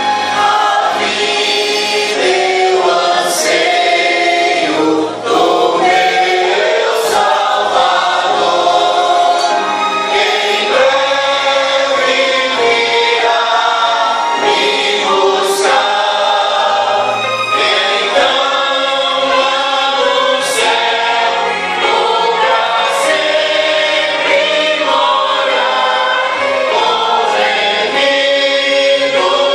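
Mixed choir of men's and women's voices singing a gospel hymn together, sung into microphones.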